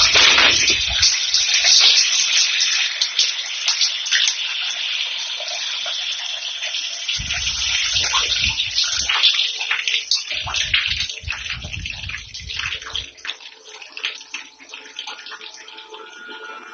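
Running water: a hissing rush that is loudest at first and fades over the stretch, with two spells of low rumble in the middle.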